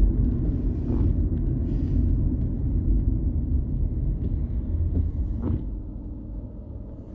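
Low, steady rumble of road and engine noise heard inside a moving car, getting quieter about six seconds in.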